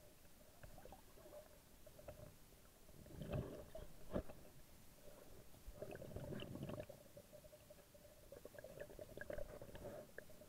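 Muffled underwater sound of water moving and bubbling against a submerged camera, with scattered clicks and two louder gurgling swells a few seconds in and again later, over a faint steady hum.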